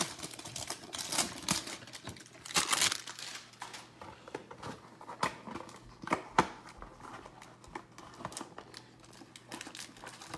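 Plastic shrink-wrap on a cardboard trading-card hanger box, crinkling and tearing in irregular rustles and sharp crackles as it is stripped off. Near the end the box's cardboard flap is pried open.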